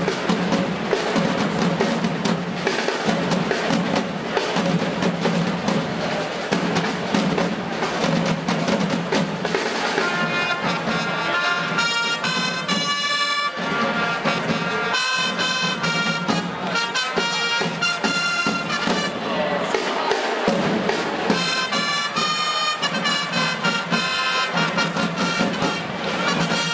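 Rolling, rattling snare drums of a drum-and-trumpet corps, with trumpets coming in about ten seconds in and playing held fanfare notes in several phrases over the drumming.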